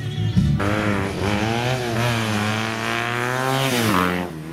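A motorcycle engine running past at steady revs, its pitch falling sharply near the end as it goes by.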